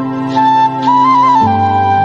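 Background music: a flute melody stepping between notes over held low chords, the low notes changing about three-quarters of the way through.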